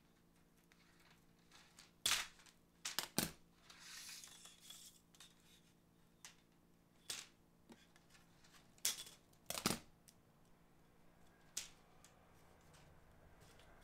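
Scissors cutting through white plastic LED diffuser strips: a handful of sharp snaps spread out, some in quick pairs, with a short rustle of handling a little after the first cuts.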